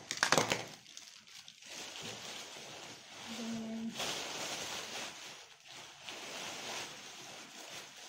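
Plastic packaging and a plastic carrier bag rustling and crinkling as decorations are handled and pulled out, with a few sharp plastic clicks at the start.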